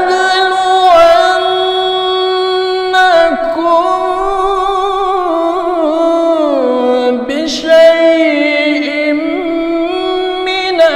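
A man's solo melodic Quran recitation (tilawah) into a handheld microphone: one voice holding long drawn-out notes with wavering ornaments, sliding down in pitch about halfway through.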